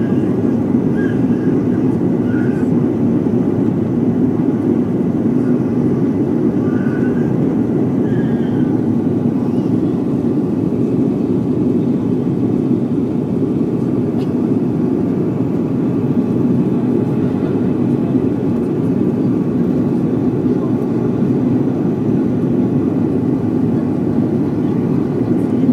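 Steady cabin noise of an airliner descending on approach with its landing gear down: a constant low roar of engines and rushing air.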